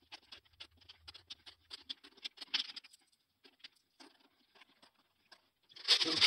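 500-yen coins clicking and clinking as they are slid across a wooden tabletop and tapped into stacks. Near the end comes a denser, louder run of clinks.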